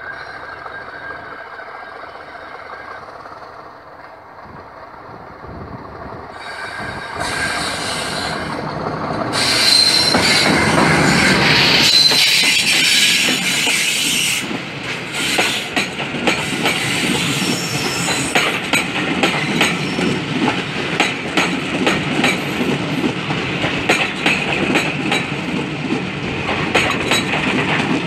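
Oncoming Class 50 diesel locomotive 50035 passing close by on the adjacent track, heard from an open window of a moving train: its English Electric V16 diesel engine grows louder as it closes in and is loudest from about ten to fourteen seconds in. Its coaches then pass with a fast, even clatter of wheels over rail joints.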